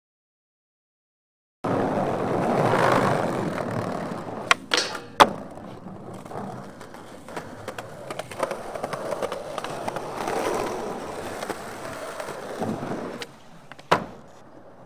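Skateboard wheels rolling over pavement, with a few sharp clacks of the board, after about a second and a half of silence. The rolling is loudest early on and then quieter.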